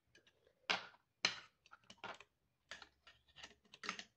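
Light metal clicks and taps as a presser foot is handled and seated into a quick-change foot clamp on an industrial sewing machine: about half a dozen sharp clicks with smaller ticks between them.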